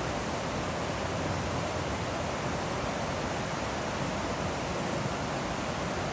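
Whitewater rapids of a mountain creek rushing over rocks, a steady, even rush of water.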